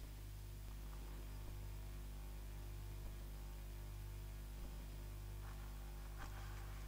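Steady low electrical mains hum from the amplified sound-art setup, with a few faint rustles and clicks of objects being handled near the end.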